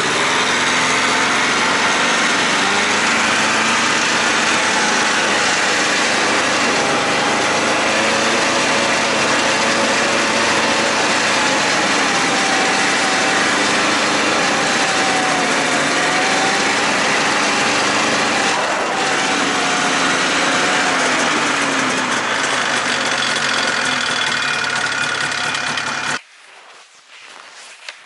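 Snowmobile engine running loud and steady while under way, its pitch rising and falling slightly with the throttle. It cuts off suddenly about two seconds before the end.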